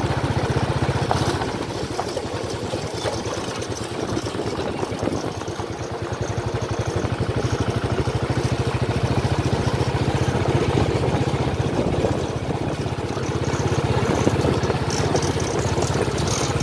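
Motorcycle engine running steadily on the move, with a rapid, even firing pulse and a rushing noise over it.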